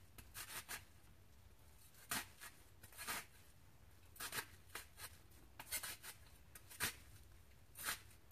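Kitchen knife cutting into a raw red onion held in the hand: a dozen or so short, sharp cuts at uneven intervals.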